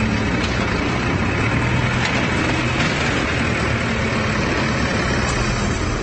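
Diesel engine of a JCB backhoe loader running steadily, with a low hum under a dense wash of noise.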